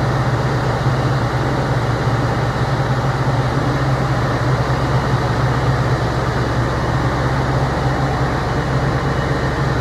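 Claas Jaguar 960 self-propelled forage harvester's diesel engine running steadily with a loud, even hum.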